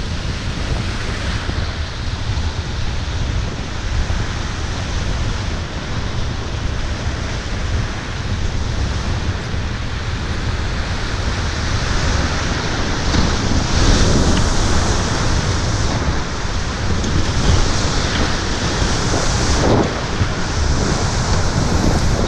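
Class V whitewater rapid rushing loudly, with wind buffeting the microphone. The rush grows louder about halfway through as the raft drops into the rapid's whitewater, with a few louder splashes of waves.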